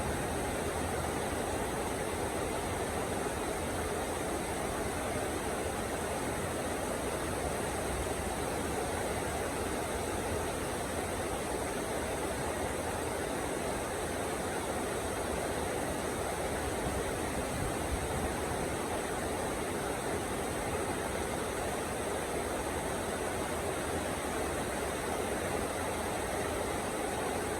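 Heavy rain falling steadily, an even, unbroken rush of downpour.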